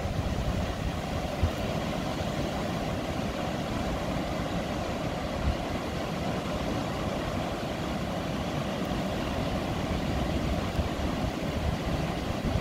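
Steady roar of ocean surf breaking on a sandy beach, with wind buffeting the microphone in low rumbles.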